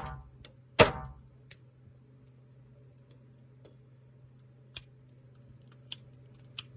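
Two loud, sharp knocks less than a second apart, then a few faint clicks scattered over a low, steady hum.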